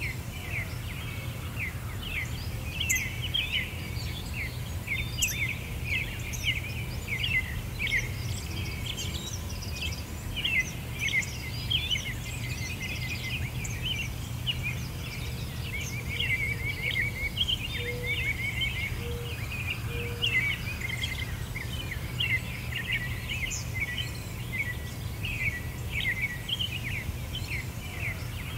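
A chorus of small birds chirping and singing, dense quick chirps one after another, over a steady low rumble.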